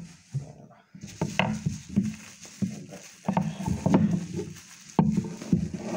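Plastic bubble wrap being unrolled and pulled off a long object on a tabletop, crinkling and rustling with scattered clicks and knocks, starting about a second in.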